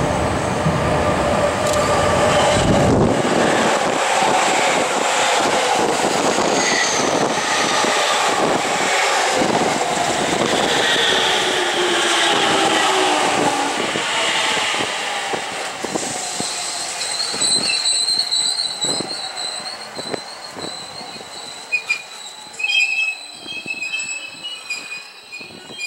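JR East E231-500 series electric commuter train running past close by as it pulls into a station. There are clacks from the wheels over the rail joints, and several whining tones fall in pitch as it slows. The noise fades in the last third, leaving a high, steady wheel squeal.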